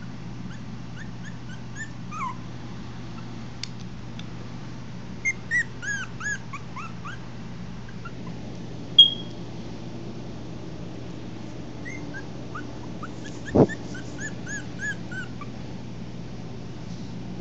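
Maltese puppies whimpering and yipping in several runs of short, high squeaks, over a steady low hum. A sharp click about halfway through and a thump later on stand out.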